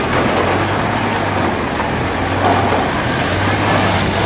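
A motor vehicle's engine running close by: a steady low hum under a dense, steady noise, the hum growing stronger near the end.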